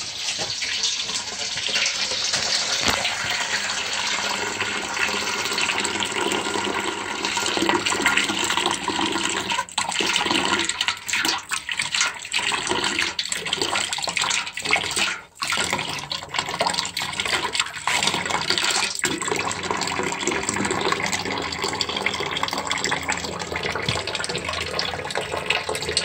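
Water pouring steadily from a new steam boiler's skim tapping into a metal bucket, splashing into the water already in it. This is skimming: oily surface water, carrying the manufacturer's fabrication oils, is being drawn off the boiler. The flow is briefly interrupted about halfway through.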